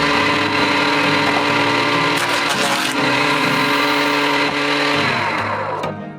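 Electric woodworking power tool running at a steady speed, then winding down about five seconds in as it is switched off.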